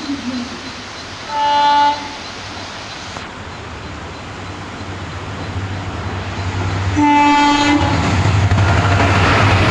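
Diesel locomotive air horn sounding two short blasts about six seconds apart, each one steady tone. After the second blast the rumble of the approaching train rises and grows louder toward the end.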